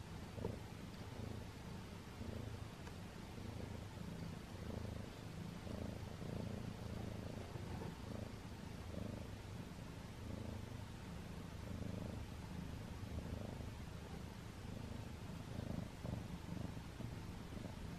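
A cat purring, a steady low rumble that swells and fades about once a second.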